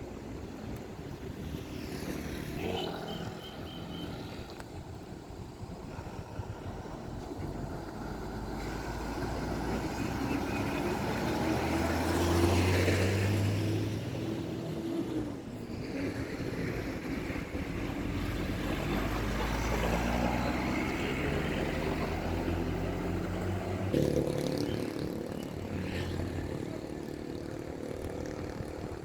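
Road vehicles passing, engine hum and tyre noise swelling to a peak about twelve seconds in and again around twenty seconds, then fading.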